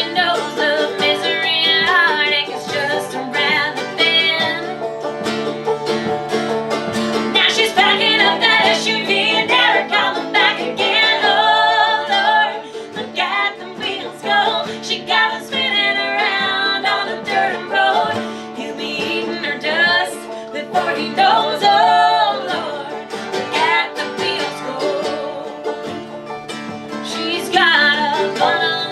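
Live acoustic performance: women singing in harmony, one lead voice, over a strummed acoustic guitar and other plucked string instruments.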